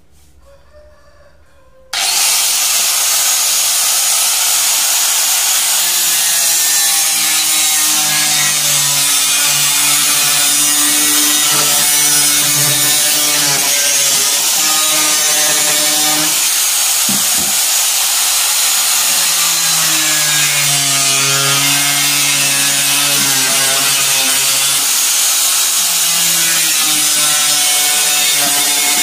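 Electric angle grinder with a cutting disc slicing through a plastic jerrycan. The motor starts about two seconds in and then runs loud and steady, its whine wavering in pitch as the disc works through the plastic.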